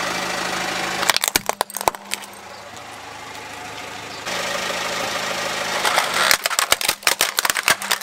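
Car engine idling as the tyre rolls onto a plastic spinning-top toy, which cracks and snaps a little over a second in. After a steady engine hum, a second, longer run of plastic cracking and snapping comes near the end as the tyre crushes a plastic toy truck.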